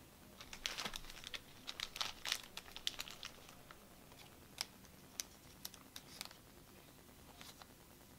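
Thin plastic trading-card sleeves crinkling as a card is handled and slid into a sleeve: a run of crackling for the first few seconds, then a few scattered soft ticks.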